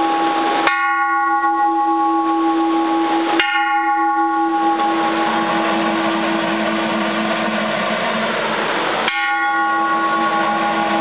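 Flanged bronze Japanese Buddhist temple bell struck three times with a wooden striker; each strike rings out in several steady tones that slowly die away. Under it is the steady hiss of heavy rain on a tin roof.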